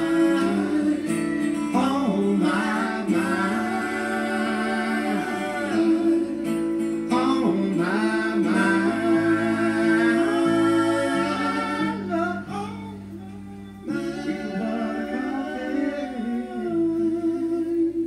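A man singing long held, wavering notes over acoustic guitar in a live song. The sound drops away briefly about two thirds of the way through, then picks up again.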